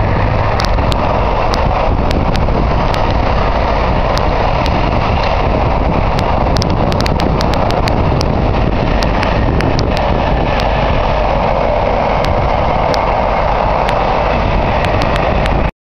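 Container freight wagons rolling past on the rails, a loud steady rumble of wheels on track with scattered sharp clicks. The sound cuts off suddenly near the end.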